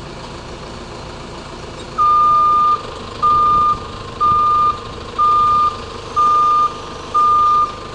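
Telehandler reversing alarm beeping about once a second, a single high tone, starting about two seconds in, over the steady hum of the machine's engine running.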